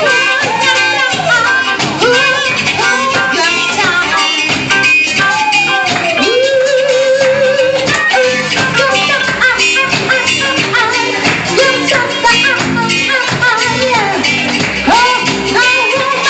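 A live band playing a pop-rock song with a singer carrying the melody, including one long held note about halfway through, over a steady full band with light shaker-like percussion.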